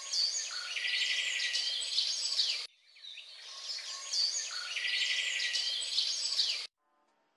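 Birds chirping and trilling over a steady hiss of outdoor noise. The same passage plays twice, broken by a short gap, and stops suddenly near the end.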